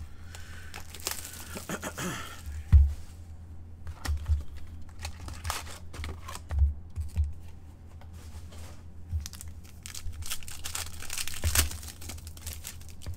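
A trading-card box and its packs being torn open, wrappers tearing and crinkling, with several low handling thumps; the loudest thump comes about three seconds in.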